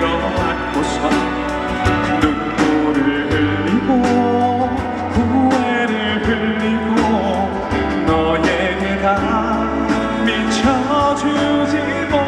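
Live band playing the instrumental interlude of a pop ballad: a steady drum beat and bass under a gliding lead melody.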